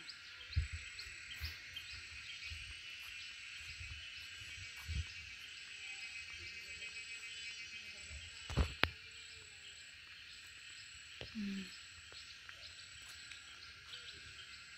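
Steady high chirring of insects in the background, with soft low thumps from walking footsteps and the hand-held phone being handled. A sharp double knock about two-thirds of the way through is the loudest sound.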